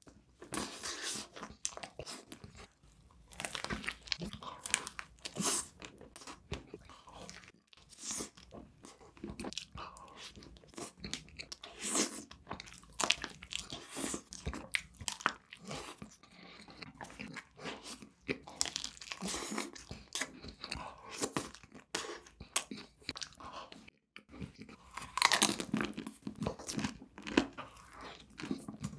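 A person biting and chewing crunchy sweets, with irregular crackling crunches throughout and a louder run of bites near the end.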